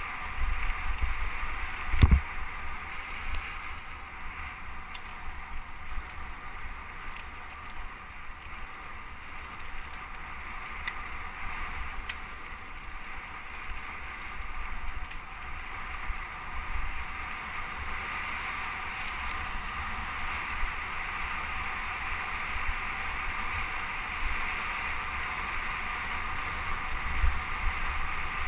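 Mountain bike ridden fast over dirt trail: a steady rush of wind on the microphone with a gusting low rumble and the rattle of the bike over the ground, and a sharp knock about two seconds in.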